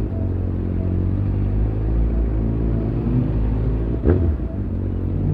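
Motor vehicle engine running steadily in traffic, a low rumble, with a short, sharp burst of sound about four seconds in.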